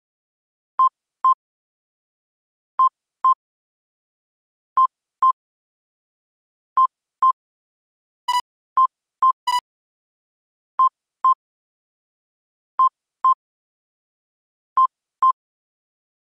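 Electronic alert beeps from an earthquake-monitoring display: a pure double beep repeating every two seconds. About eight seconds in, two sharper, brighter beeps cut in among them.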